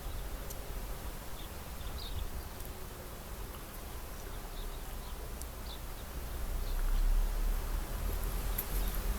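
Outdoor background: a steady hiss with a low rumble of wind on the microphone that grows louder about seven seconds in, and faint short chirps now and then.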